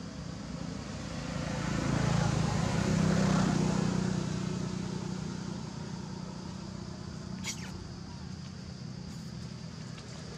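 A motor vehicle passing, its low engine hum swelling and then fading over a few seconds. A single sharp click about seven seconds in.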